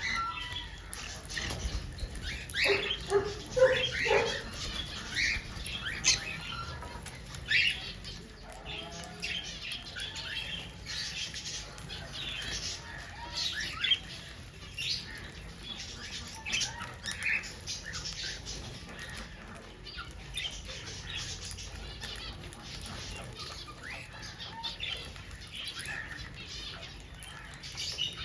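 Small birds calling: many short, high chirps scattered throughout, with a few lower notes about three to four seconds in.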